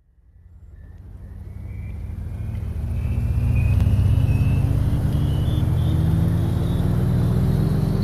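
A motor-vehicle engine-like drone that fades in over the first few seconds and then holds loud, its pitch climbing slowly and steadily as in a long acceleration.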